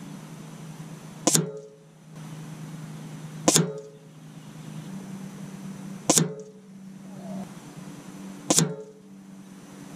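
Four .177 air rifle pellets striking the paper target card on its target box, each a sharp hit about two and a half seconds apart with a short ring. A steady low hum runs under them.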